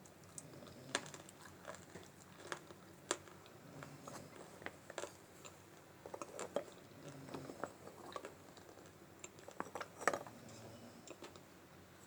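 Multani mitti (fuller's earth clay) being bitten and chewed: irregular crisp crunches and crackles, the loudest about ten seconds in.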